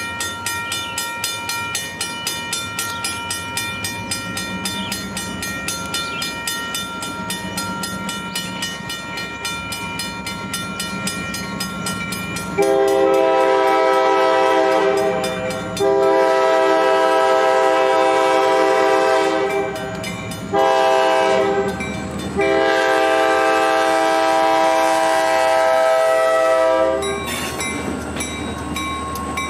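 A grade-crossing bell rings in quick regular strokes while the diesel engines of two four-axle EMD locomotives approach. About 13 seconds in, the lead locomotive's air horn sounds the grade-crossing signal, long, long, short, long, and the locomotives then pass close by.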